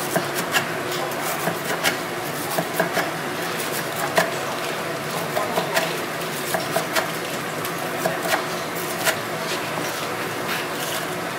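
Large kitchen knife slicing through a deep-fried pig's trotter on a wooden cutting board: irregular sharp knocks of the blade on the board and the crunch of the crisp batter, over steady background noise.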